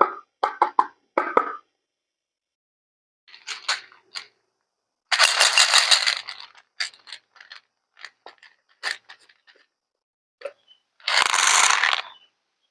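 Small objects handled with a string of clicks and knocks, and two longer scraping noises about five and eleven seconds in.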